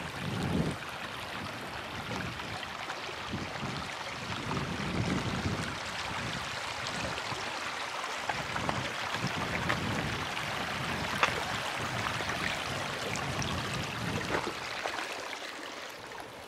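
Shallow creek water running steadily over rocks, with footsteps on a gravelly dirt trail as soft thumps every second or two and a few small clicks.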